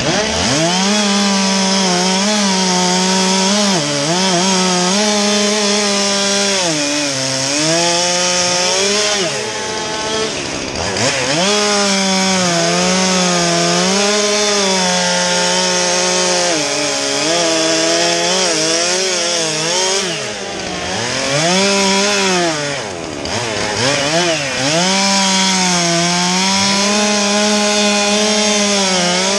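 Stihl two-stroke chainsaw cutting through conifer logs at full throttle. Its pitch sags as the chain bites into each cut and climbs again as it clears, over and over, with a few brief drops off the throttle.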